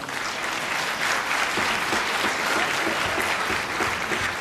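Theatre audience applauding, a dense spread of clapping that fills in about a second in and thins out near the end.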